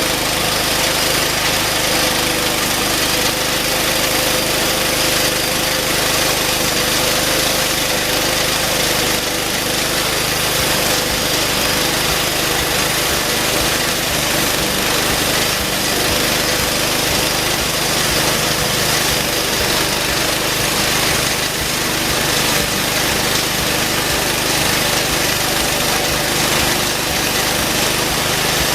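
Homemade band sawmill running steadily, its engine driving the band blade through a hard post oak log.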